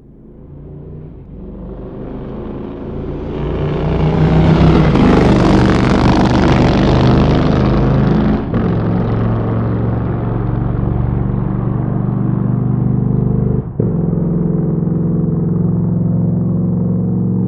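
Motorcycle engine fading up from silence and growing louder over about four seconds, then running steadily at a fairly even pitch, with two brief breaks in the sound partway through.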